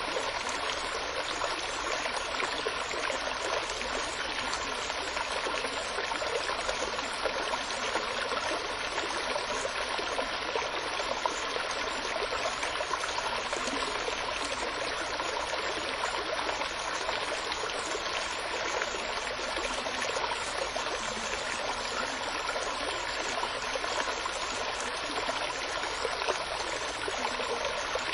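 Running water flowing steadily, an even, unbroken babble with no pauses or changes.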